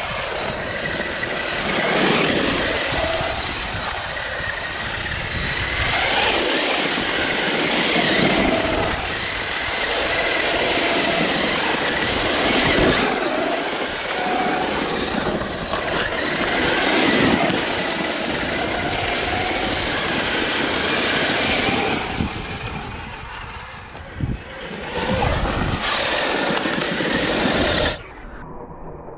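Traxxas UDR RC truck driving hard on loose ground: the whine of its brushless motor and the scrabble of tyres on grit and gravel surge several times as the throttle is worked. The sound drops away suddenly near the end.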